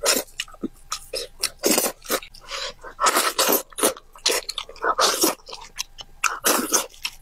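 Mouth sounds of eating braised pig's head: biting, smacking and chewing in irregular short bursts.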